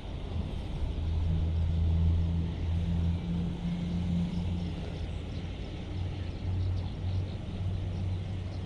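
A low, steady engine hum, loudest in the first half and then settling lower and steadier.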